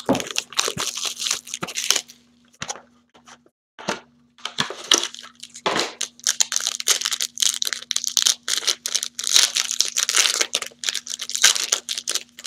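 Plastic-foil wrapper of a 2016 Topps Strata card pack crinkling and tearing open by hand, with dense crackling for about two seconds, a short pause, then crackling again from about four seconds on.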